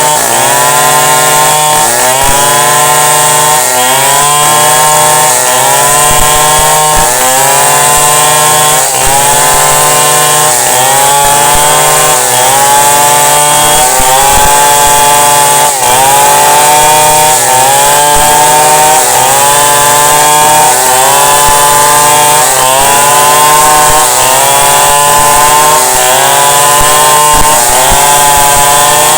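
Chainsaw running loudly and cutting wood, its engine pitch dipping under load and recovering about once a second, over and over.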